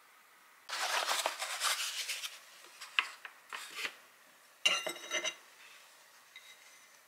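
Kitchen handling sounds: crinkly rustling for about a second and a half, then a few light knocks and a bright clink of ceramic with a short ring about halfway through, as a bagel sandwich is handled and set down on a ceramic plate.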